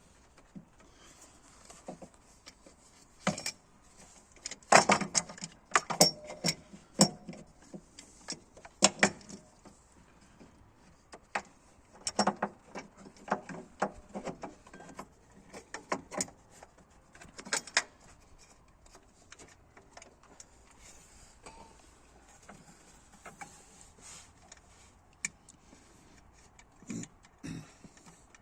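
Irregular metallic clinks and knocks of hand tools and metal parts being handled. The clatter comes in clusters, busiest from about five to nine seconds in and again in the middle, with no engine running.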